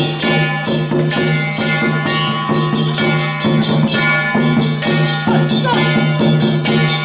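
Festive music with a steady, quick percussion beat of rattles and drums over sustained held tones.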